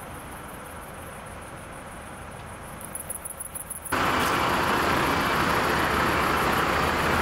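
Quiet night ambience with faint high-pitched insect chirping, then a sudden jump about four seconds in to a loud, steady hum of idling vehicle engines.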